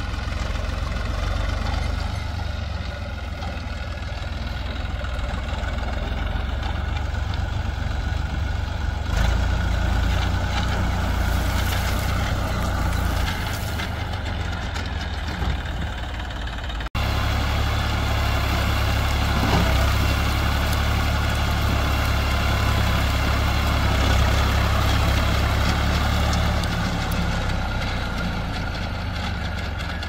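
Heavy diesel machinery engine running steadily, with a brief dropout just over halfway through.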